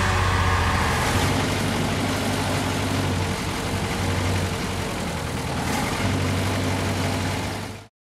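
Vehicle engine idling steadily, with a low, even hum, then cutting off suddenly near the end.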